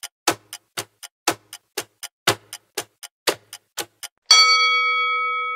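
Quiz countdown-timer sound effect: a clock ticking about four times a second, with a stronger tick once each second. About four seconds in it gives way to a bell-like chime that rings on and slowly fades, marking time up.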